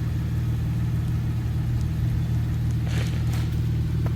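Dodge Charger GT's V6 engine idling steadily in the cold, warming up, with a light click about three seconds in.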